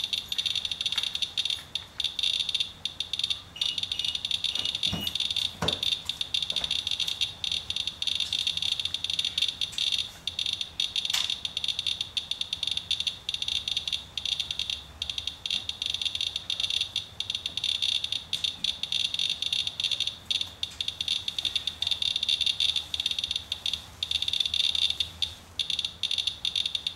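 Inspector Geiger counter chirping rapidly, its clicks running together into a steady high-pitched rattle: a high count rate, with the meter holding around 0.35 mR/hr from a rain-wiped sample, many times background radiation.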